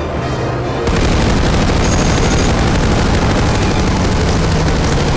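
Film score, then about a second in a sudden start of dense, continuous rapid machine-gun fire that keeps on without a break.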